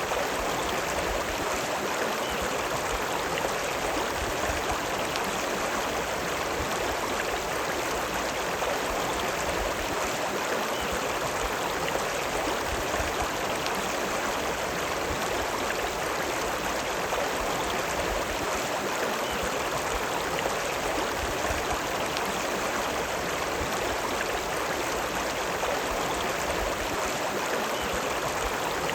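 River water running steadily, an even, unbroken rush of flowing water.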